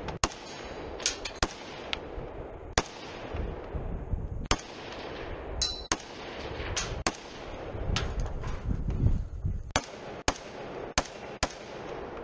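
A .308 semi-automatic rifle firing a string of about a dozen shots at an uneven pace, half a second to nearly two seconds apart, with gear rustling between the shots. A short high-pitched ring comes about halfway through.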